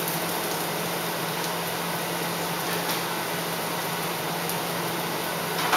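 Steady fan-like hum with an even hiss, unchanging throughout.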